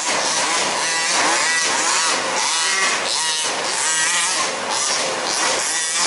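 Several 1/5th-scale RC cars' small two-stroke petrol engines racing together, overlapping as each revs up and down through the corners and straights.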